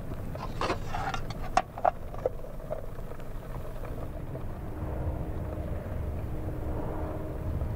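A few light metallic clinks and knocks as a dented metal pot and its lid are handled over a fire, followed by a steady low rumble with a faint hum.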